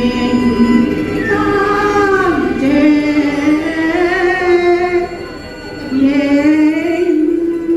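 Cantonese operatic singing in the pinghou style by a female singer, long held notes that bend and glide, with vibrato on the last note, over instrumental accompaniment. There is a brief breath between phrases about two-thirds of the way through.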